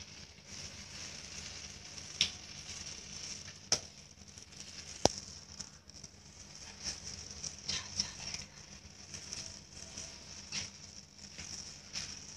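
A heap of burning matchsticks crackling over a steady hiss, with scattered sharp pops, the loudest about five seconds in.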